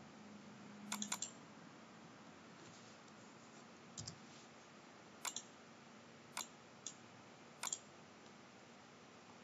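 A computer mouse clicking: a scattered handful of short, sharp clicks, some in quick pairs, over faint room hiss.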